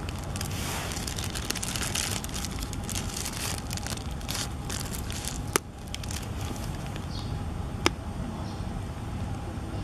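Outdoor background noise: a steady low rumble with rustling crackles, and two sharp clicks, one a little past the middle and one about two seconds later.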